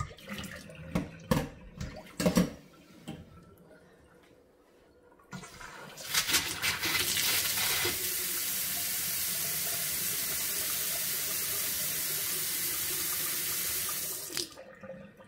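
A few sharp knocks and clunks, then a Franke kitchen mixer tap is opened and water runs steadily into a stainless steel sink for about eight seconds before it is shut off abruptly. The tap is on a test run after its cartridge was cleaned and refitted to cure a drip.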